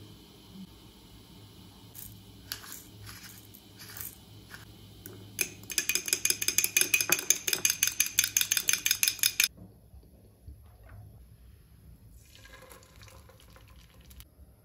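A fork beating a raw egg in a small ceramic bowl, the tines clicking rapidly against the bowl at about seven strokes a second for nearly four seconds. A few light taps come a few seconds before the beating starts.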